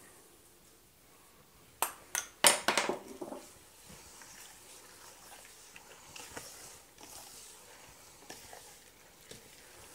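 A few sharp clinks about two seconds in, as the seasoning bowl knocks against the aluminium pot, then the faint wet squelching of a bare hand mixing blood, rice and suet for black pudding in the pot.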